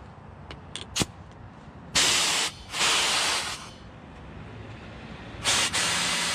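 Compressed air hissing from a pneumatic cut-off tool in three bursts as the trigger is squeezed, after a sharp click about a second in. The compressor tank is nearly spent, leaving too little pressure to turn the cutting wheel.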